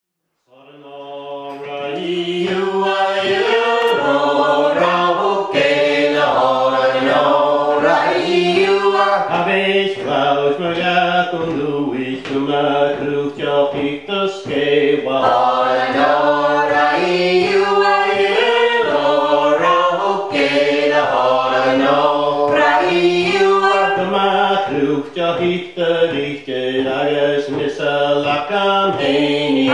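Unaccompanied Scottish Gaelic song with a vocable refrain, sung by a man's voice. It fades in over the first two seconds.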